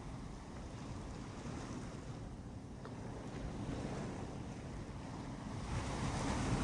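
Ocean surf: waves breaking and washing up the beach, with a louder wave surging in near the end.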